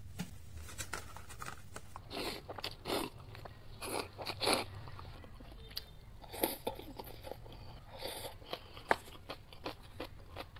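Close-miked eating of cup ramen noodles: a few loud slurps of noodles in the first half, then wet chewing with many small mouth clicks.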